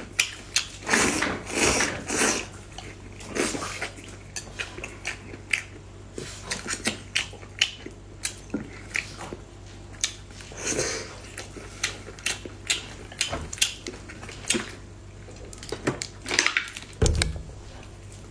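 Close-miked eating: noodles slurped and chewed with wet mouth sounds, and chopsticks clicking against a bowl, over a low steady hum.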